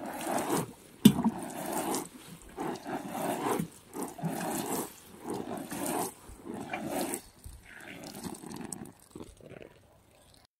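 Water sprinkling from a plastic watering can's rose onto strawberry leaves and landscape fabric, splashing unevenly in surges as the can moves along the bed, and stopping about nine seconds in.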